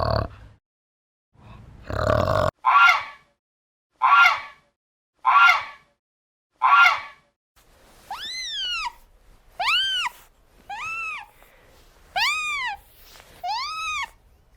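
Animal calls in sequence: first a few short, rough grunting calls about a second apart, then, after a change about halfway in, high pitched calls that rise and fall, repeating roughly once a second.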